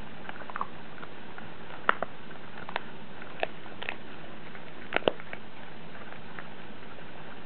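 Dog crunching on a dried pig ear treat: sharp, irregular crunches, the loudest a close pair about five seconds in, over a steady hiss.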